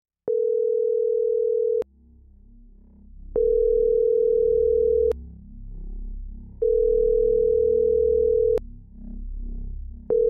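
Telephone ringback tone: a steady beep of about one and a half to two seconds, repeating every three seconds or so, four rings in all. It is the sound of an outgoing call ringing unanswered. A low music bed runs underneath.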